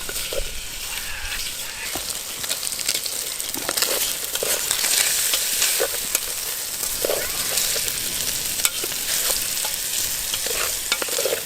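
Canned ham sizzling as it fries in olive oil in an aluminium billy pot over campfire coals: a steady hiss with a few short, louder scrapes scattered through it.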